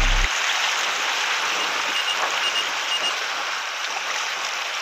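Background music cuts off just after the start, giving way to a steady rush of sea water washing over a rocky shore.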